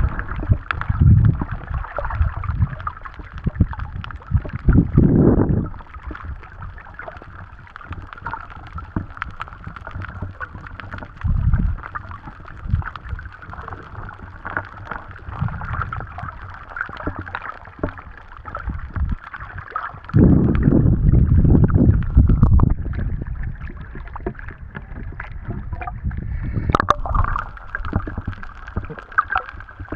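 Muffled underwater sound picked up by a submerged camera: low surges of rushing, sloshing water that swell several times, the longest about twenty seconds in, over a constant crackle of small clicks.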